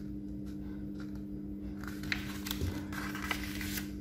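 A square sheet of white A4 paper being folded in half by hand on a wooden table: soft rustling with a few light taps and crinkles in the second half, over a steady low hum.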